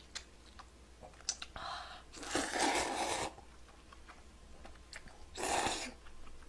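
Glass noodles being slurped into the mouth in two long sucks: the louder one about two seconds in, lasting over a second, and a shorter one near the end. A few small mouth clicks fall between them.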